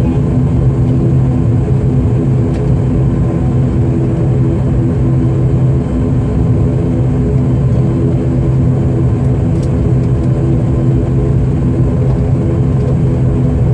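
The ATR 72-500's Pratt & Whitney Canada PW127 turboprop engines and propellers heard from inside the cabin, giving a steady, even drone with a deep hum while the aircraft taxis.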